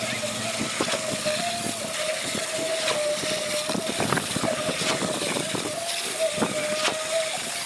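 Wet ready-mix concrete pouring from a concrete pump hose onto a rebar roof slab, with shovels scraping and slapping the concrete in short irregular strokes. A steady mechanical whine from the pump runs underneath.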